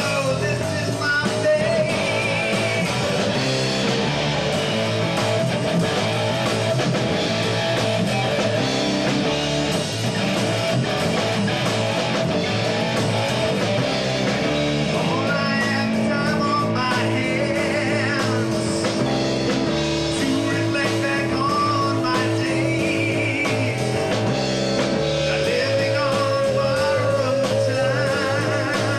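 Three-piece rock band playing live: electric guitar, bass guitar and drum kit, with the guitar's lines bending and wavering over a steady beat.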